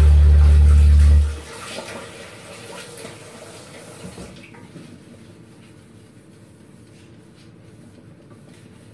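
Background music with a deep sustained bass cuts off about a second in. A steady hiss of running water follows and stops about four seconds in, leaving quiet room tone with faint clicks.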